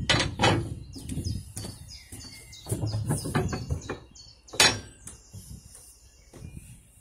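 Freight train wheels rumbling and clicking on the track beneath a moving brake van, dying away over a few seconds. Birds chirp, and a single sharp knock comes about four and a half seconds in.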